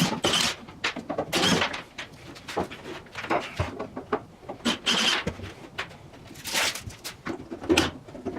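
Irregular knocks, scrapes and clatters of hand tools working at bolts and wooden blocking, in uneven bursts with short gaps between them.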